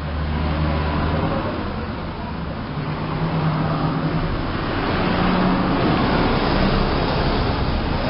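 Road traffic noise: a motor vehicle's engine running close by, a low hum under a broad rushing noise that swells from about three seconds in.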